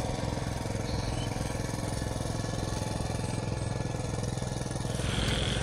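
VST power tiller's single-cylinder diesel engine running steadily, growing slightly louder near the end.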